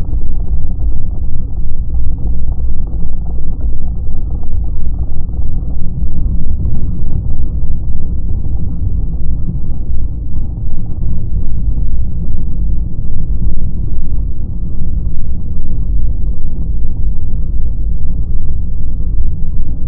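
Riding noise on a 1993 BMW R100R: the air-cooled flat-twin engine running under a steady rush of wind buffeting, heard muffled.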